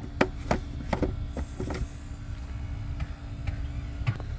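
Sharp plastic clicks and knocks, about six in the first two seconds and two more near the end, as a new engine air filter is pushed down into its plastic airbox housing, over a steady low rumble.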